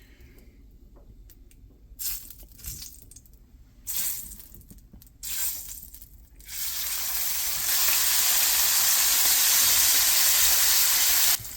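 A few brief rustles of the bacon being handled, then, about six and a half seconds in, bacon strips hit hot butter and burger grease in a frying pan and sizzle: a steady hiss that swells over the next second or so, holds, then cuts off suddenly near the end.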